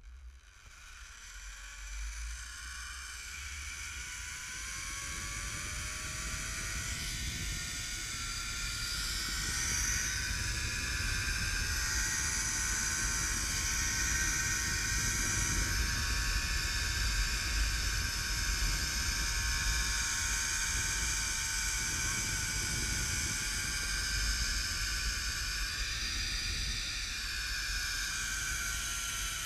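Zip line trolley pulleys rolling along a steel cable, giving a whirring whine that climbs in pitch over the first ten seconds or so as the rider gathers speed and sinks slightly in the last few seconds, with wind rushing over the microphone.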